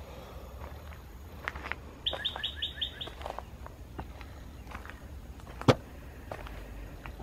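A songbird sings a quick run of about seven repeated chirping notes about two seconds in, over outdoor ambience. A few short clicks follow, then one loud, sharp snap or knock near the end.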